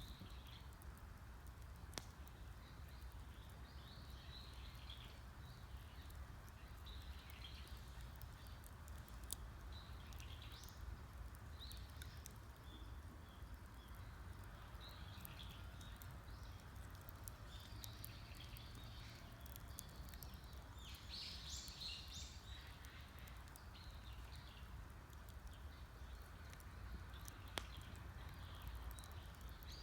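Wood campfire crackling faintly, with a few sharp pops, while small birds chirp and twitter throughout, busiest about two-thirds of the way through.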